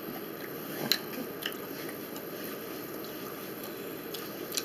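Someone eating pancakes: chewing, with a few short clicks, the sharpest about a second in.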